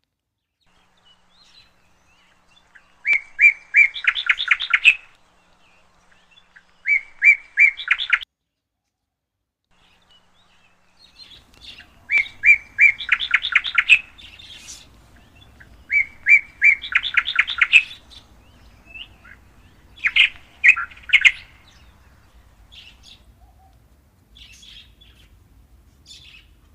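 A songbird singing: phrases of a few clear, evenly spaced notes that run into a fast trill, repeated about five times, then softer scattered calls. A faint low hum comes in about halfway.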